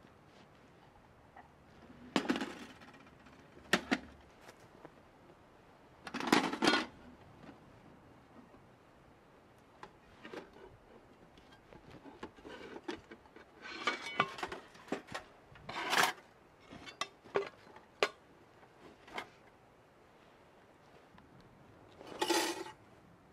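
Stainless-steel panels of an S'more Magic Stove folding wood stove clinking and clanking as it is lifted out of its bag and unfolded. Sharp metal knocks come one at a time, the loudest about two, four and six seconds in and again around sixteen seconds, with lighter clicks between.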